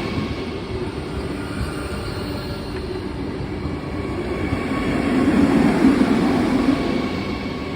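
Vande Bharat electric multiple-unit train running past at speed: a steady rushing noise, like a jet plane, that swells again about two-thirds of the way through.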